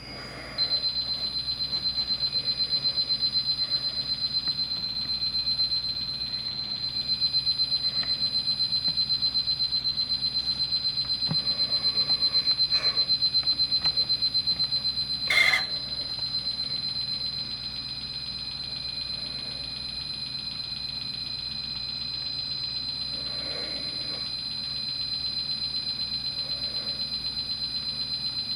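Pioneer CT-W840R cassette deck giving a steady high-pitched squeal that starts about half a second in and runs on, with one sharp click about halfway through. The owner suspects a squealing drive belt.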